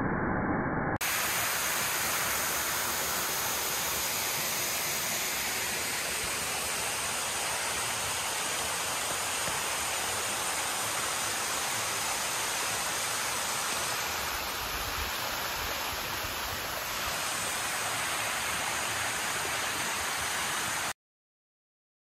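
Steady rush of a waterfall, water pouring and splashing down a tall rock face. It cuts off suddenly near the end.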